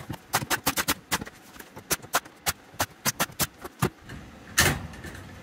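Nail gun firing a quick run of sharp shots, about fifteen in the first three and a half seconds, fixing wood trim to a plywood panel. A single louder knock follows near the end.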